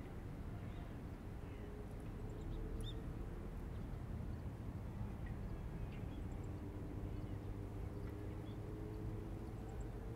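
Riverside morning ambience: a steady low rumble with faint, scattered bird chirps. A faint drawn-out hum rises slowly in pitch through the second half.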